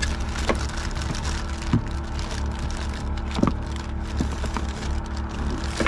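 Steady hum of a running generator engine, with scattered light ticks and crackles from a frying pan heating up on a Trangia spirit stove.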